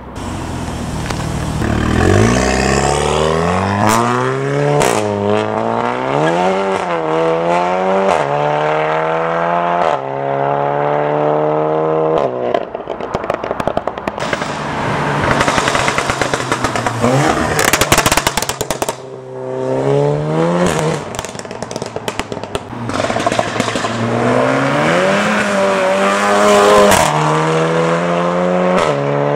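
Performance car engines revving and accelerating hard, their pitch climbing and dropping with throttle and gear changes. In the middle come bursts of rapid exhaust crackles and pops as the throttle is lifted.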